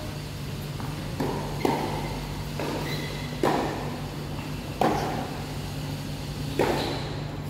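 Tennis rally in doubles play: rackets striking the ball, about five sharp pops one to two seconds apart, over a steady low hum.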